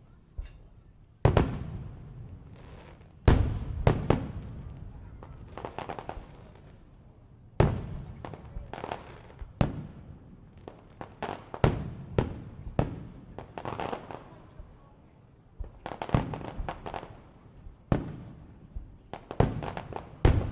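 Fireworks display: aerial shells bursting one after another, sharp bangs each followed by a fading echo, some coming in quick clusters.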